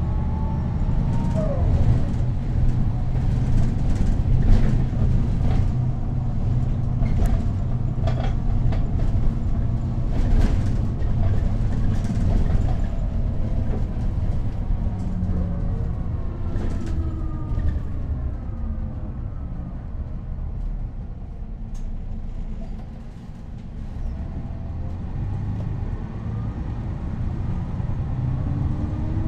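Neoplan N 4016 city bus heard from inside while driving: a steady low engine drone with a whine from its ZF automatic gearbox that rises and falls in pitch as the bus speeds up and slows, and a few short knocks and rattles.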